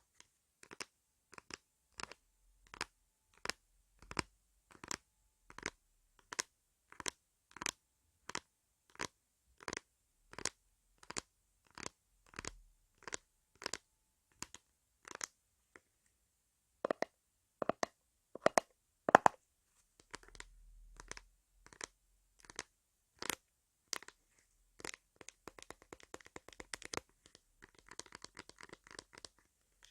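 Hands rubbing and scratching over a microphone's ears as an ASMR ear massage, in steady strokes about two a second. After a short pause come a few louder strokes, and near the end the rubbing turns into a denser, crinkly rustle.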